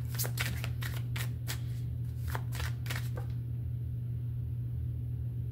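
A deck of oracle cards being shuffled by hand: a quick, irregular run of card flicks and slaps for about the first three seconds, then it stops, over a steady low hum.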